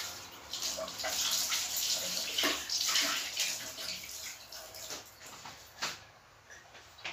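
Water running from a tap, a steady splashing hiss that dies away about five seconds in, followed by a couple of light knocks as bowls are handled.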